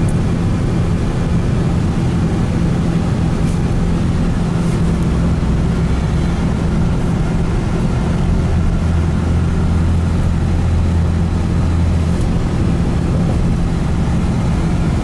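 Steady engine and road noise of a moving motor vehicle, heard from inside its cabin. A deeper engine hum swells in from about five seconds and fades out around twelve seconds in.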